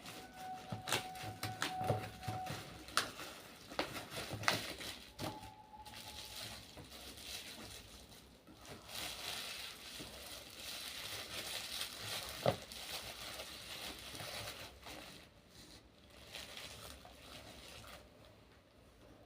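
Product packaging being handled and unwrapped: crinkling and rustling with scattered clicks and taps, and one sharp knock about twelve seconds in.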